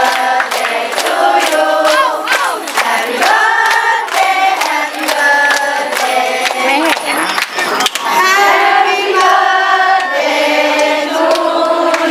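A group of people singing together, clapping along on a steady beat.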